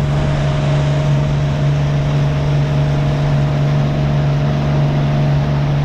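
Boat motor running at a steady speed, a constant hum over an even rushing hiss.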